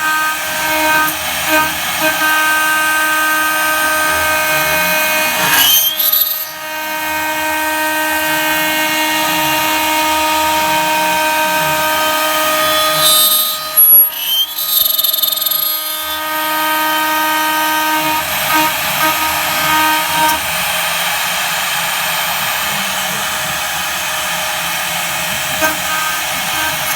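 CNC spindle milling aluminium with an 8 mm two-flute end mill at about 19,900 rpm, cutting at full 15 mm depth with a 1 mm stepover: a loud, steady high-pitched whine with a tooth-passing tone. The cutting tone breaks briefly about six and fourteen seconds in.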